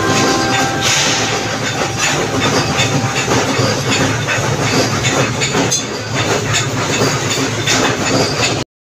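Workshop din of metalworking machinery: a continuous dense clatter of rapid knocks with hiss, cutting off abruptly near the end.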